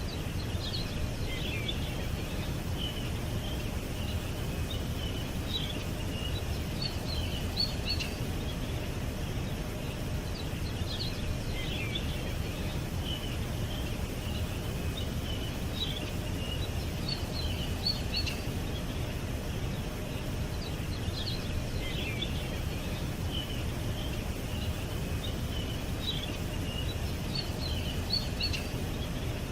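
Small birds chirping in quick high-pitched clusters that recur every four to five seconds, over a steady low background noise.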